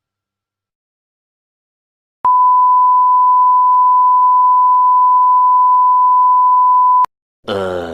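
A single steady high-pitched beep, one pure unbroken tone, starting about two seconds in, held for about five seconds and cutting off suddenly: the classic 1 kHz censor-bleep sound effect.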